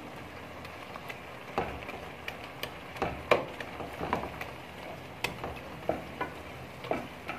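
A spoon mashing and stirring boiled turnips frying in oil in an aluminium pot: a faint steady sizzle with scattered scrapes and taps of the spoon against the pot.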